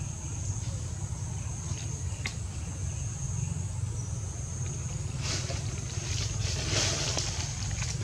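Wind rumbling on the microphone outdoors, with a thin steady high drone behind it and a few faint clicks and rustles, the rustling strongest about five to seven seconds in.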